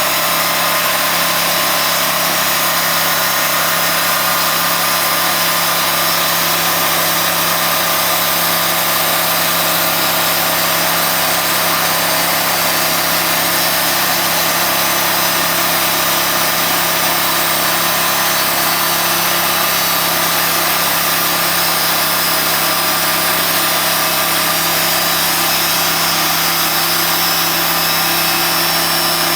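Sawmill running steadily at a constant engine speed while sawing a large mesquite log into slabs.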